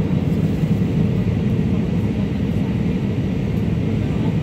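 Steady low cabin roar of an Airbus A320 on its landing approach: engine and airflow noise heard inside the cabin, with a faint steady hum running through it.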